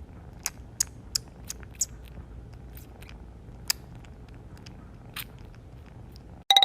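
Chewing on something crunchy: irregular crisp crunches, a few per second at first and sparser later. A brief pitched ringing sound comes right at the end.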